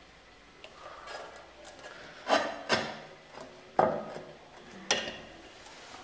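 Four short scraping knocks, the first two close together, the last two about a second apart, as of something hard being rubbed and bumped.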